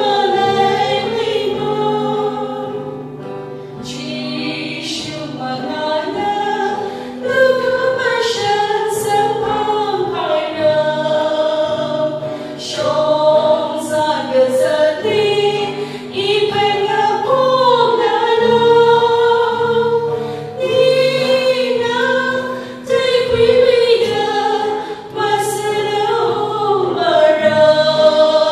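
Three women singing a gospel song together into microphones, with an acoustic guitar accompanying.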